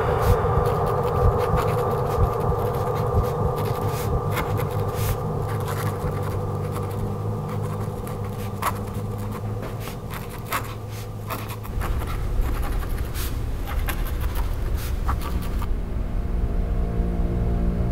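Pen scratching on paper in many short strokes, over a low steady hum.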